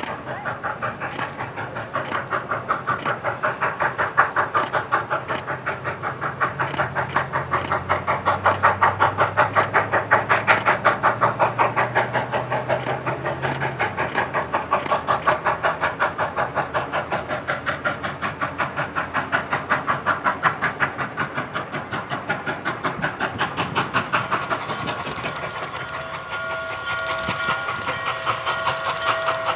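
Norfolk and Western J-class 611 steam locomotive working under load, its exhaust chuffing in a fast, even beat, with scattered sharp clicks over it. Near the end its chime whistle sounds a long, steady blast of several notes at once.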